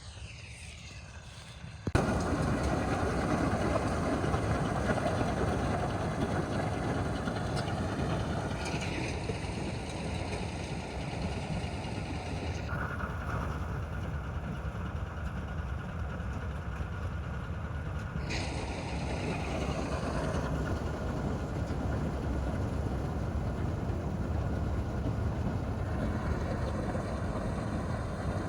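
Combine harvester running steadily as it works. The sound jumps up suddenly about two seconds in and then stays loud and even, with small shifts in tone.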